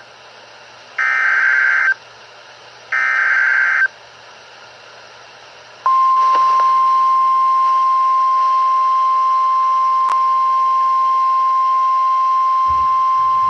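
Emergency Alert System flash flood warning: two one-second electronic data bursts of the SAME header, a second apart, then after a two-second gap a single steady warning tone, the NOAA Weather Radio 1050 Hz alert tone, starting about six seconds in.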